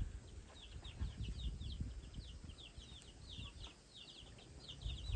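Birds chirping: quick, high, down-slurred notes, several a second, over a faint low rumble.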